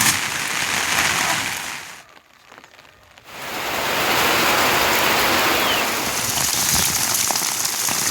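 Steady rain falling, an even hiss, that drops away sharply for about a second near the two-second mark and then comes back.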